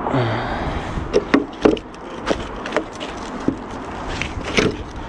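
A series of sharp knocks and clacks, about ten, irregularly spaced, over steady background rumble.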